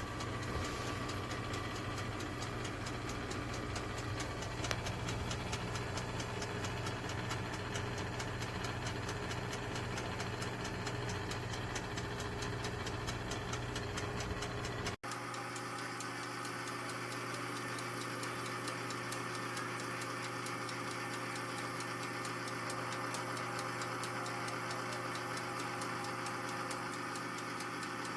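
Countertop toaster oven running: a steady hum with fast, even ticking. About halfway through the hum changes suddenly, losing its low part.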